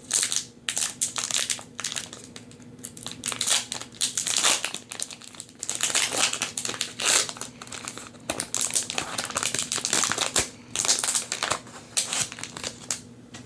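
Foil wrapper of a Magic: The Gathering collector booster pack being torn open and handled, crinkling in irregular bursts.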